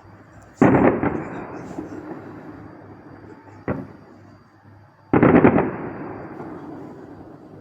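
Fireworks exploding overhead: two big bursts, one about a second in and one about five seconds in, each a quick cluster of cracks with a rumbling echo that fades over a couple of seconds, and a single sharper bang between them.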